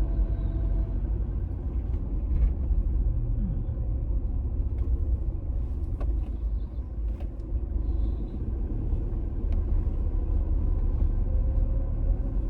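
Car engine running with a steady low rumble, heard from inside the cabin.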